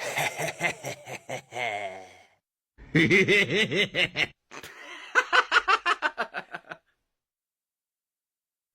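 Rapid, pulsed laugh-like vocal sounds in three bouts, the last a quick run of about six 'ha' pulses a second, stopping about two seconds before the end.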